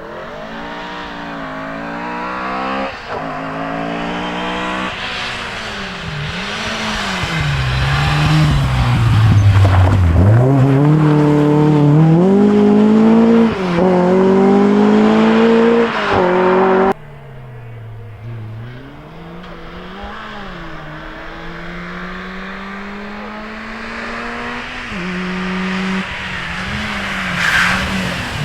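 Rally car engine revving hard through quick gear changes as the car comes close, its pitch dropping under braking and climbing again as it accelerates away. About 17 seconds in it cuts suddenly to another rally car, quieter and farther off, revving and shifting up through the gears.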